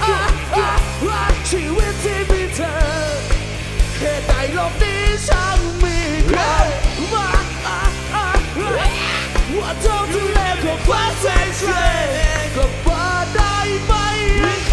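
Live rock band playing an instrumental passage: a lead melody with pitch bends and vibrato over bass and steady drums. A held chord comes in at the very end.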